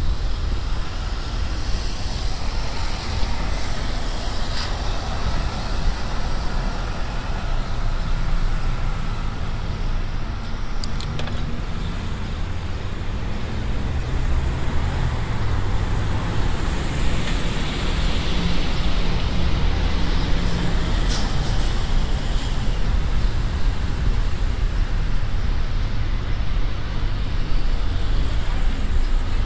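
City street traffic heard from a moving bicycle: a steady low rumble of car engines and tyres on the road, with vehicles swelling past and a few brief high clicks.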